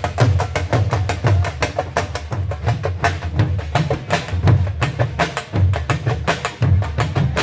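Dhol drum played in a fast, driving rhythm: rapid sharp stick strokes, several a second, over recurring deep bass beats.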